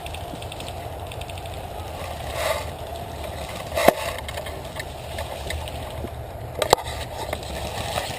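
Steady outdoor rustling and wind noise, broken by a few sharp cracks: one about four seconds in, a pair near seven seconds, and one at the end.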